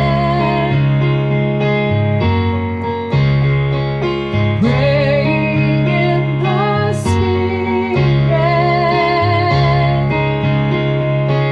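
Keyboard music on an electric piano, held chords changing every second or two, with a female voice singing along without clear words.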